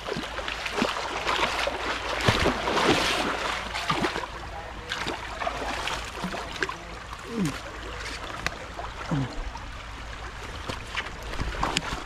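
Footsteps and rustling through grass and brush, with crackles of twigs and leaves and creek water running beneath.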